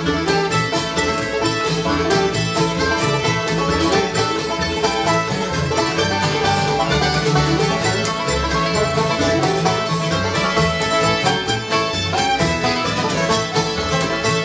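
Live bluegrass band playing an instrumental: banjo, fiddle, mandolin, acoustic guitar and upright bass together, with busy, even picking that runs without a break.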